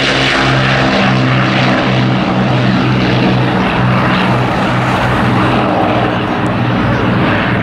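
Avro Lancaster bomber's four Rolls-Royce Merlin V12 piston engines and propellers passing close by, a loud, deep drone that pulses about twice a second as the unsynchronised engines beat against each other.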